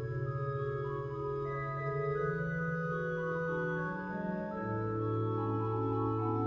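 Organ music with slow, held chords over a bass line that climbs in steps and drops back down about two-thirds of the way through.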